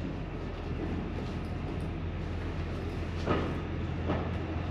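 NER Autocar No. 3170 railcar running along the track with a steady low hum from its engine and drive. About three seconds in, its wheels strike twice, a little under a second apart, as they cross a rail joint.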